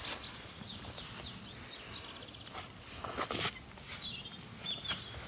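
Small songbirds chirping and singing, with quick rising and falling notes. A brief rustling, scuffing noise about three seconds in is the loudest sound.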